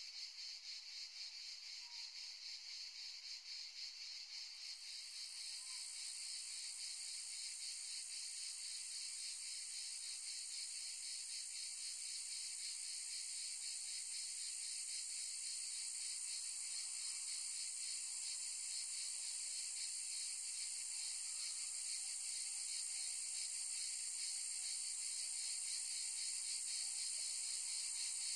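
Dense chorus of insects: a steady, high-pitched shrill with a fast, fine pulsing. A second, higher strand joins about five seconds in, and the chorus grows gradually louder.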